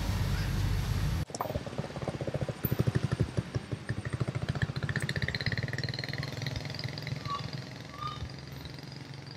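Motorbike engine passing close by on the road, a fast pulsing beat that fades away over several seconds. Two short high squeaks come near the end.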